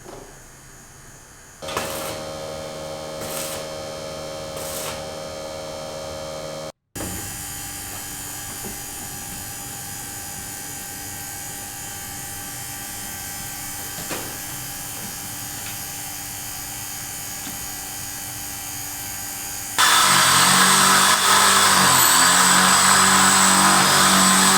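A machine humming steadily, with a short break about seven seconds in; about twenty seconds in, a much louder, rougher mechanical running sound takes over.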